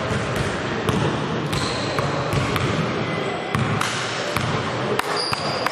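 A basketball bouncing on the court in a gym, with sharp knocks scattered through a dense, steady hall din. A couple of brief high squeaks come through, typical of sneakers on the floor.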